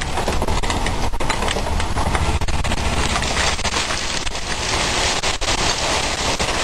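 KrAZ dump truck tipping its load: stones and gravel pour out of the raised steel body as a steady rushing rattle over the low running of the truck's diesel engine.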